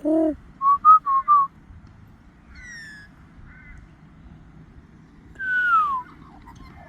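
Magpie whistling calls: a short low call, then four quick whistled notes, and later one loud whistle falling in pitch.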